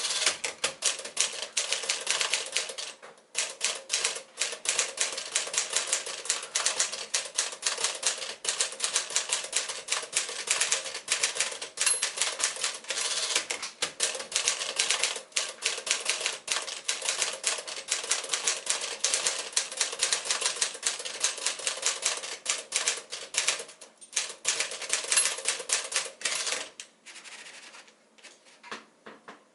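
A 1951 Smith-Corona Sterling manual typewriter being typed on at a fast steady pace, the keys striking in a dense run of sharp clacks. There is a brief pause about three seconds in, and the typing stops a few seconds before the end, leaving only a few faint clicks.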